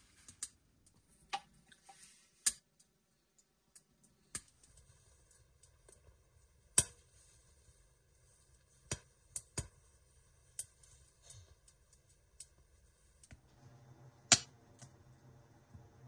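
Firewood crackling in a small tent wood stove: sparse, sharp, irregular pops. A faint low steady hum comes in near the end.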